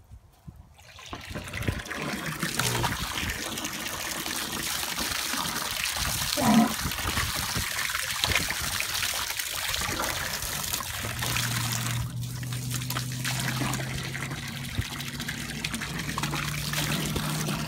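Water running steadily from a garden hose and splashing into a plastic tub, building up over the first two seconds. A brief louder pitched sound comes about six and a half seconds in, and a low steady hum joins in from about two thirds of the way through.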